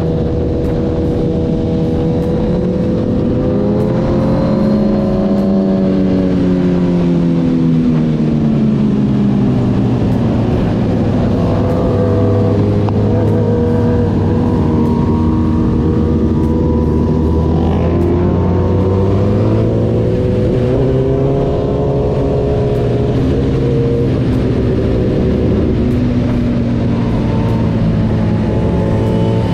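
Motorcycle engines running and revving, their pitch rising and falling as throttles open and close, with several engines heard at once.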